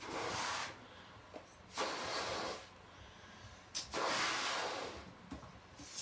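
A person blowing up a rubber balloon: three long puffs of breath into it, about two seconds apart.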